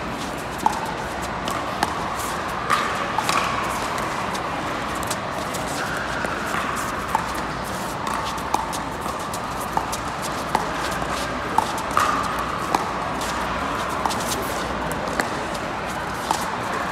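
A long pickleball rally: the sharp pop of paddles striking the plastic ball about once a second, over the steady noise of an indoor hall.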